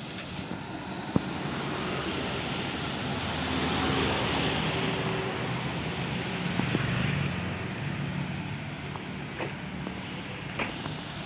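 Road traffic passing close by: a broad rush of a vehicle going past that swells and peaks about four seconds in, with engine hum underneath. A few sharp clicks sound now and then.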